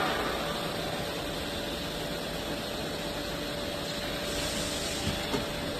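Factory machinery running steadily: a constant hiss with a faint steady whine, and a couple of light knocks near the end.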